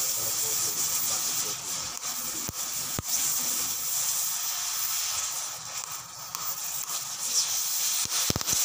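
Cutting torch flame hissing steadily as it cuts through an excavator bucket bushing, with a few sharp clicks, a cluster of them near the end.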